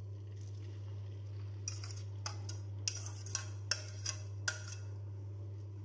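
A metal spoon clinking and scraping against a plate while pushing a food mixture off it into a frying pan: about seven sharp clinks, the sharpest between three and four and a half seconds in. A steady low hum runs underneath.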